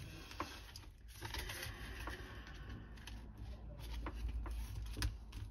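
Paper banknotes and a vinyl zippered binder pouch being handled: soft rustling with a few light clicks as the pouch is zipped shut.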